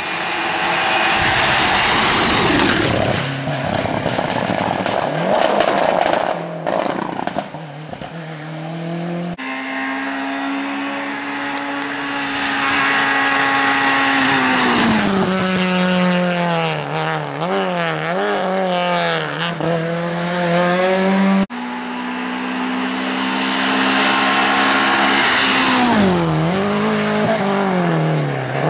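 Rally cars passing one after another on a sprint stage, in three short passes separated by abrupt cuts. Each engine is revving high and then drops in pitch in several steps with brief wobbles as the car slows.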